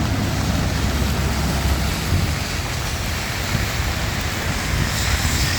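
Steady rain falling on a city street, with traffic rumbling underneath. Near the end a rising hiss builds as a vehicle comes closer on the wet road.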